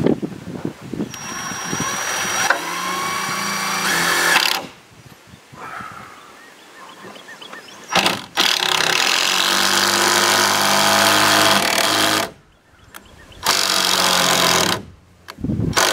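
Power drill driving a 6-inch TimberLOK screw through the top plate into a rafter, running under load in several long runs of a few seconds each with short pauses between.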